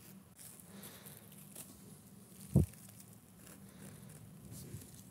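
Faint rustling and small scratchy ticks from handling a doll's wig cap, with a single dull thump about two and a half seconds in.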